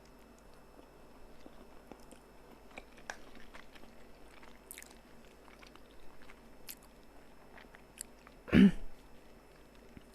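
A person chewing a mouthful of noodles, faint, with soft scattered mouth clicks. One short burst about eight and a half seconds in is much louder than the chewing.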